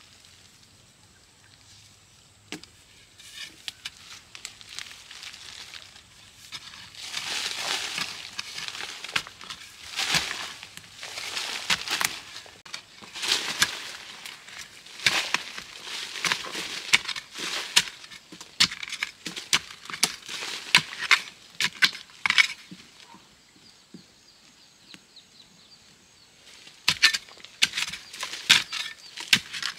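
Long-handled, metal-tipped digging tool striking and scraping into loose forest soil among tree roots, with dirt crunching and falling, in quick runs of blows. The strokes pause for a few seconds near the end, then start again.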